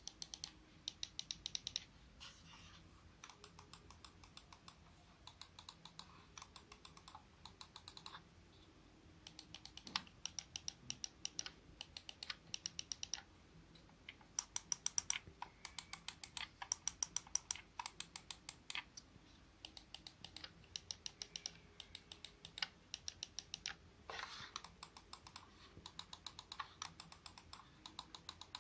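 Razer wireless gaming mouse buttons clicked rapidly in runs, several crisp clicks a second with short pauses between runs.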